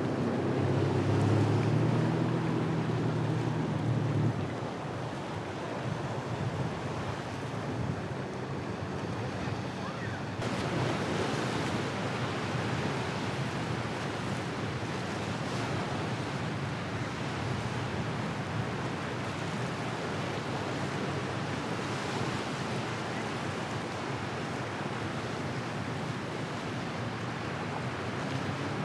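Surf and wind buffeting the microphone. A boat engine's steady hum can be heard in the first four seconds before it fades, leaving only the waves and wind.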